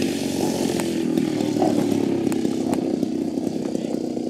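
DLE 55cc single-cylinder two-stroke gasoline engine of a giant-scale RC aerobatic plane running steadily at low throttle as the plane lands and rolls out on grass.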